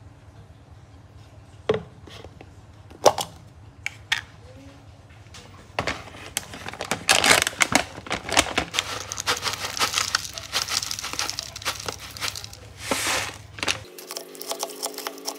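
Plastic yogurt tub lid being pried off, with a few sharp clicks, then a plastic granola bag crinkling and rustling for several seconds as granola is poured into the tub.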